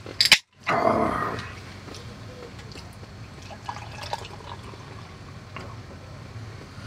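A beer can cracked open with a sharp snap, then beer poured from the can into a stemmed glass: a loud gush for about a second, settling into a quieter steady pour with faint fizzing ticks.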